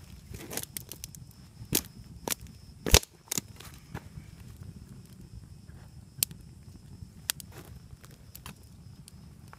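Wood campfire crackling, with irregular sharp pops and snaps over a low steady rumble. The loudest pop comes about three seconds in.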